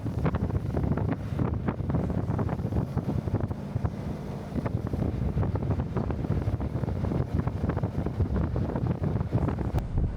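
Jeep Wrangler Rubicon 392 driving, a steady low rumble with wind buffeting the microphone and many small knocks and rattles.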